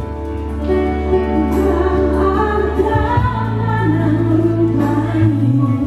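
A woman singing into a microphone with a live band, holding long, wavering notes over sustained keyboard chords.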